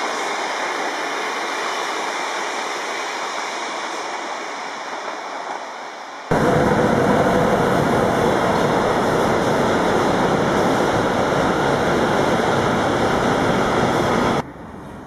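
Steady rushing noise of an NS double-deck electric train running on the far track, fading over about six seconds as it draws away. Then, after an abrupt cut, a louder steady rushing noise with more bass, which stops suddenly near the end.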